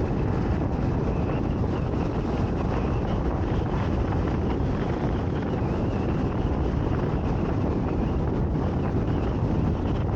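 Steady wind buffeting the microphone: a continuous low rushing with no breaks.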